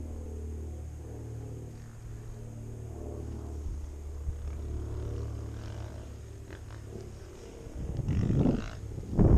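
Dirt bike engine running steadily at low revs with a low rumble, then opening up louder and rougher near the end as the bike moves off along the trail.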